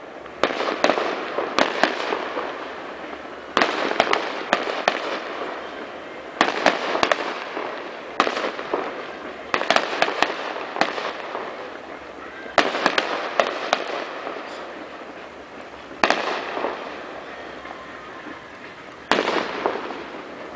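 Fireworks display heard from a distance: clusters of sharp bangs from bursting shells every two to three seconds, each cluster trailing off in a fading rumble and crackle before the next.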